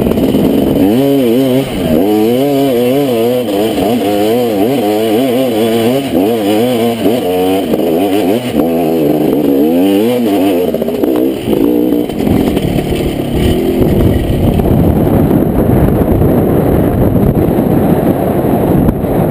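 KTM 250 SX two-stroke dirt bike engine under way, revving up and down over and over as the throttle is worked. In the second half it runs steadier under a rougher, noisier rush.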